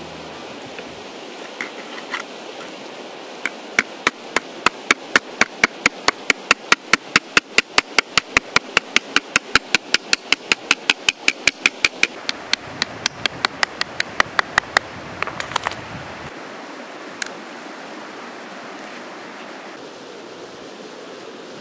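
A long run of sharp, evenly spaced taps of a hard object being struck, about four a second for some eleven seconds, over a steady hiss.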